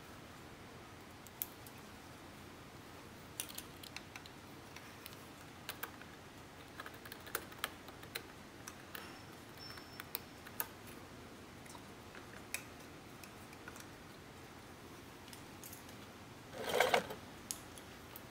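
Scattered light clicks and taps of 16-gauge solid copper wire and a hand tool against the plastic and screw terminals of a push-button control box as the wire is fitted, with a louder short scraping rustle near the end.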